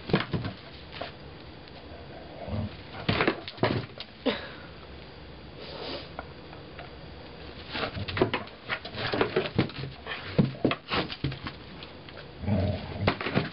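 A Shetland sheepdog whimpering, with scattered sharp clicks and knocks that come in clusters, the loudest about three seconds in and again from about eight to eleven seconds in.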